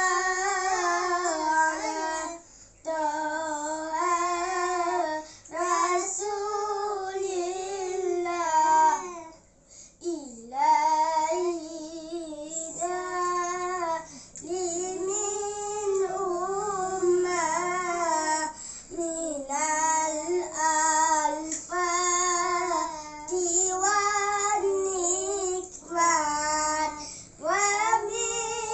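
Young boys singing salawat, an Arabic devotional chant, unaccompanied, in short phrases with brief pauses for breath and a longer break about a third of the way in.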